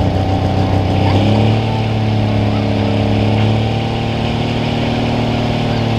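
Dodge Ram pro stock diesel pulling truck's engine running at the line, then about a second in the revs step up and climb slowly, held at a raised rpm.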